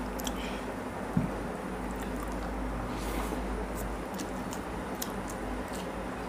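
Fingers squishing and mixing rice with curry gravy on a plate, with faint scattered clicks and a soft thump about a second in.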